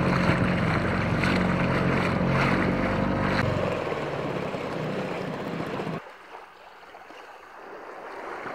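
Outboard motor on an inflatable dinghy running steadily, with water rushing along the hull; it fades out about four seconds in. After about six seconds only a faint wash of wind and surf remains.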